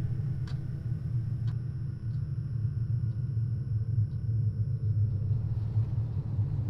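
Low, steady rumbling drone, with a quartz wall clock ticking faintly about once a second that fades away after about four seconds.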